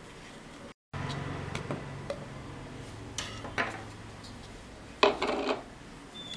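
Stainless-steel mixer-grinder jar being handled and opened: scattered clinks and scrapes of steel, the loudest knock about five seconds in, over a faint low hum.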